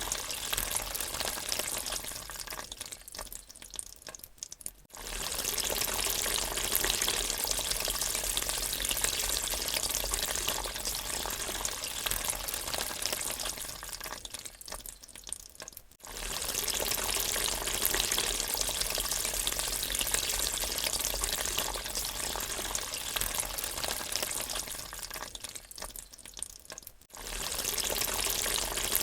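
Water draining: a steady rush of water that dies away, then starts again abruptly, about every eleven seconds.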